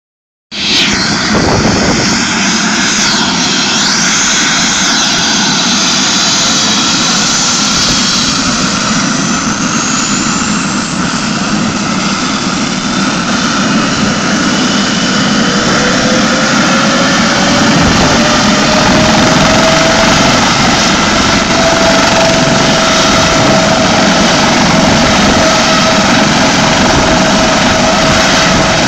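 Air ambulance helicopter on the ground with its turbine engines running loudly and steadily. A whine rises in pitch about halfway through and then holds.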